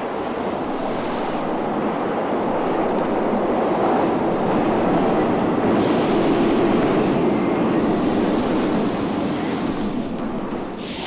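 A steady mechanical rumble, like a vehicle running, that swells to its loudest about six seconds in and then eases off.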